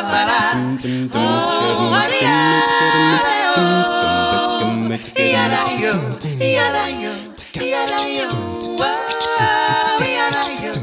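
A cappella vocal group of mixed male and female voices singing in close harmony over a low sung bass line, with no instruments.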